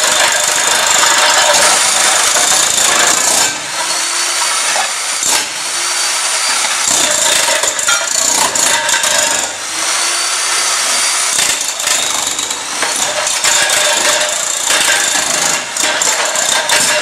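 Electric demolition hammer on a wheeled trolley running continuously, its wide chisel blade hammering under floor tiles and breaking them loose from the concrete. The hammering dips briefly a few times.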